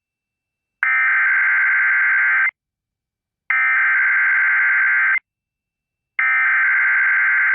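Emergency Alert System SAME header: three identical bursts of digital data tones, a harsh buzzing warble, each about a second and a half long with a second of silence between them. They encode the alert that follows, here a National Weather Service severe thunderstorm warning.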